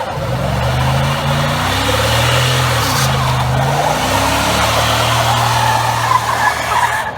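Dodge Dakota pickup's engine pulling under acceleration, its note rising and stepping down several times as it shifts, over steady road and wind noise. The sound cuts off abruptly near the end.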